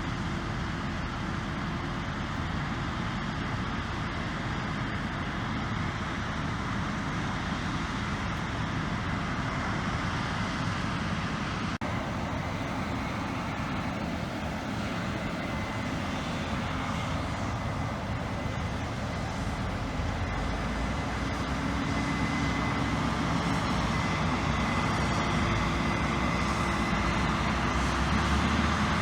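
Diesel harvest machinery running steadily in a soybean field, a combine or a tracked tractor pulling a grain wagon, with a faint steady high whine. It grows louder in the last several seconds as the machine draws closer.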